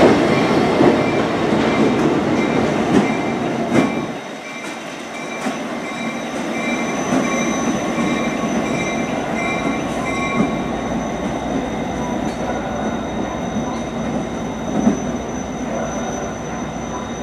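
Saratoga and North Creek passenger train hauled by EMD F40PH diesel locomotives passing close by, with a heavy rumble and sharp clicks of wheels over rail joints. About four seconds in the sound cuts to a more distant train rumbling steadily and slowly fading as it moves away along the track, with a few more wheel clicks.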